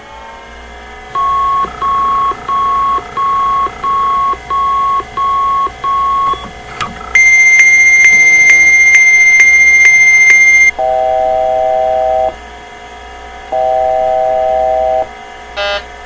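Electronic appliance alarms going off as mains power is restored, over a steady electrical hum: first a run of about eight evenly spaced beeps, then a loud high continuous alarm tone for about three and a half seconds, then two long lower beeps, each a chord of several tones.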